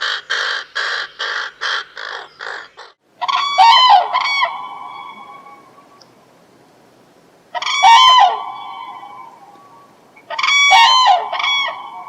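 Bird calls: a rapid series of harsh calls that slows and fades, then a different bird giving three loud, pitched, echoing calls a few seconds apart.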